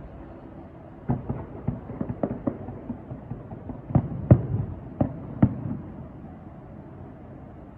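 Fireworks shells bursting in a rapid string of about a dozen bangs with short rumbling tails, loudest about four seconds in, heard over a steady low hum from the cruise boat.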